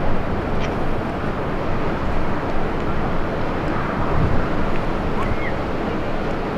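Steady wind noise buffeting an outdoor microphone, a dense, even rumble with no clear events.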